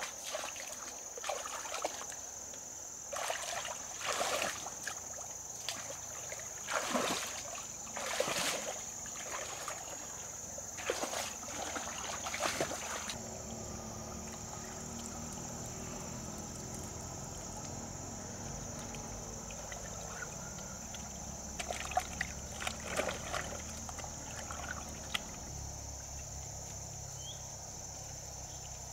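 Water splashing and sloshing in shallow water, with many short irregular splashes in the first half and a steadier slosh in the second half.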